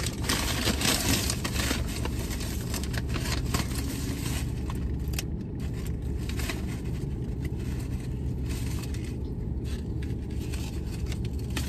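Paper fast-food bag and cardboard burger box rustling and crinkling as a burger is unwrapped, thinning out after about four seconds, over the steady low hum of a car idling.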